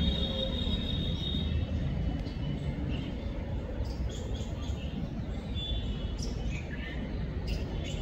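Small birds chirping and whistling in short, scattered calls over a steady low rumble of background noise.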